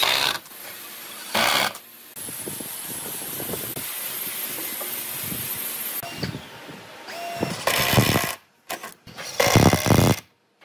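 Cordless drill driving screws into wooden boards, in several short bursts of the motor with pauses between.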